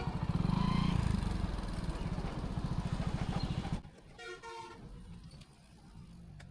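Motorcycle engine running with a rapid, even pulsing, until it drops away about four seconds in; then a short horn toot.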